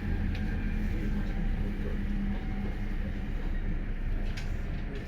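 Running noise inside a JR Hokkaido Rapid Airport electric train: a steady low rumble with a low hum that fades out about halfway through, and a few faint clicks.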